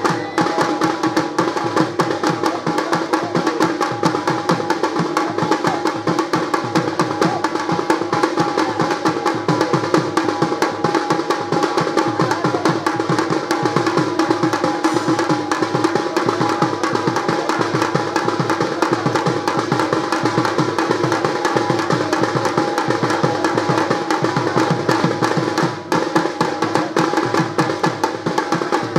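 Fast, continuous folk drumming, the strokes packed tight and unbroken, with steady ringing tones held above it: the accompaniment music of a Bengali Raibenshe dance troupe.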